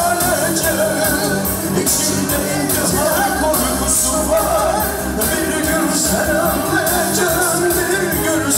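Live Kurdish halay dance music from a band, with a steady drum beat under a wavering melody and a male singer's voice.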